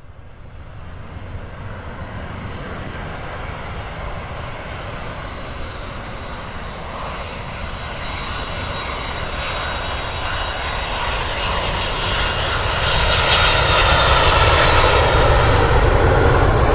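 Jet airliner engine noise, a steady rush that builds gradually and is loudest in the last few seconds.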